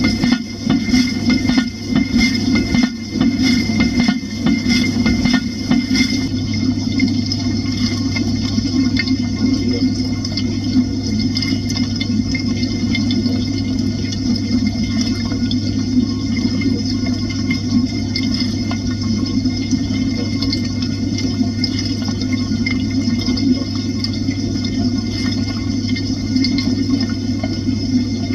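IFB dishwasher mid-wash, heard from inside the tub: spray arms throwing water over the dishes and tub walls over a steady pump hum. A few knocks and rattles in the first several seconds.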